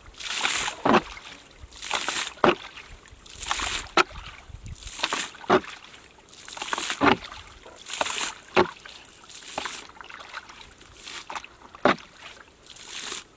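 Water splashing in a steady rhythm, about once every second and a half: each time a splashy rush, then a sharp slap.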